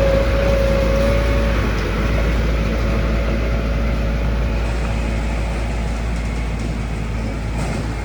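Heavy diesel machinery engine running steadily, with a high whine over the rumble that weakens about a second and a half in.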